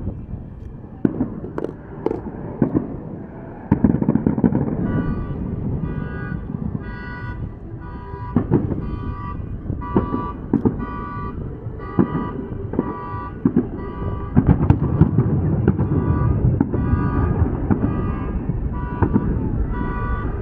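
Fireworks going off in a steady barrage of bangs and pops over a low rumble. From about five seconds in, a car alarm sounds a horn in an even pulsing rhythm, about one and a half honks a second, alongside the fireworks.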